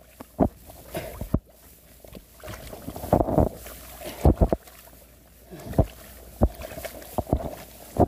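Gloved hands stirring and sloshing the mud and water of a flooded rice paddy: irregular splashes and squelches, a handful of them spread through the few seconds.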